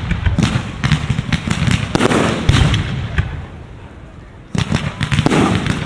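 Fireworks display: a rapid volley of bangs and crackles from shells going off, thinning out a little past halfway, then a sudden loud new volley near the end.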